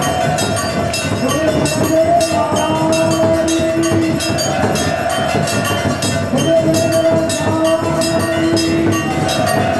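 Loud devotional music with long held, horn-like notes over a fast, even ringing of metal percussion, about four strokes a second.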